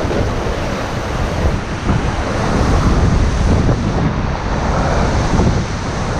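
Wind buffeting the microphone, with surf washing on the shore underneath.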